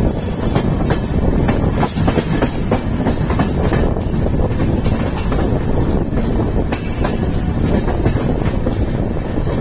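Indian Railways passenger train running along the track, heard from beside the coach: a steady rumble of wheels on rails with frequent sharp clicks and clacks, thicker in the first few seconds.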